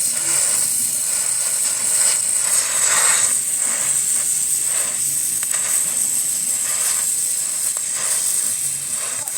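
Gas welding torch flame hissing steadily, with a few faint taps.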